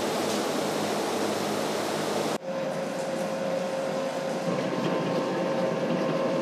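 A steady rushing noise, then a sudden cut about two and a half seconds in to large commercial planetary mixers running with a steady hum, their beaters mashing steamed taro in steel bowls.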